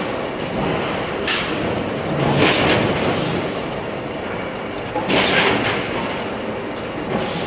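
Industrial machinery running with a steady mechanical noise, broken by four short bursts of hissing.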